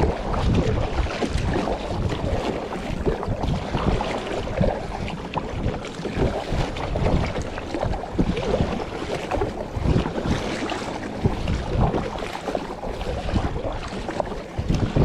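Wind buffeting the microphone in irregular low thumps over a steady wash of choppy sea water moving around a kayak.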